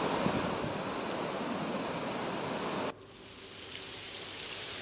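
Floodwater rushing through a village, a steady dense noise of fast-flowing water. It cuts off abruptly about three seconds in and is followed by a fainter steady hiss.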